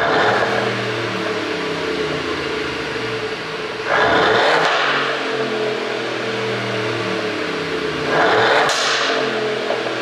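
Mercedes-Benz GLC 350e's 2.0-litre turbocharged four-cylinder idling at the exhaust on its stock ECU software, revved in two short blips, about four seconds in and again about eight seconds in.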